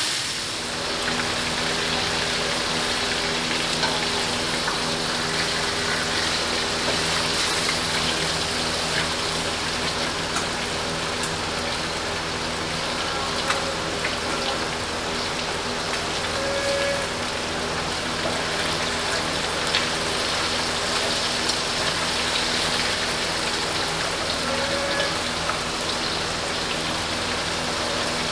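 Rohu fish steaks frying in hot oil in a steel kadai, a steady dense sizzle, with a few sharp taps as the pieces are turned with a spatula. A steady low hum runs underneath.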